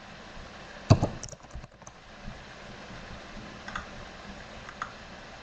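Computer keyboard typing: a few keystrokes, the loudest about a second in, followed by a handful of faint, widely spaced clicks.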